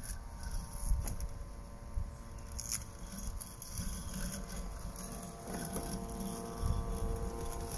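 Husqvarna Automower 430XH robotic lawn mower running on grass: a steady whine of several tones from its electric motors. Wind rumbles on the microphone, growing stronger near the end.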